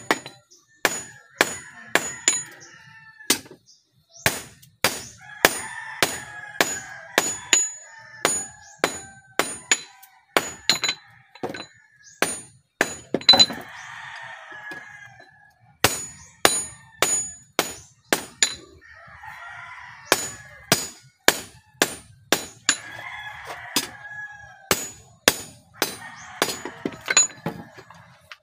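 Hand hammer striking a red-hot knife blade on a small steel anvil, about two ringing blows a second in runs with short pauses, while the blade is forged to shape. Chickens clucking and a rooster crowing are heard between the blows.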